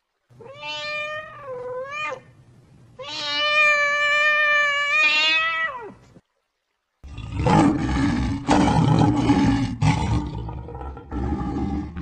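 Domestic cat meowing twice, a shorter call and then a longer drawn-out one that rises and falls. From about seven seconds in, a lion roars and growls, rough and loud.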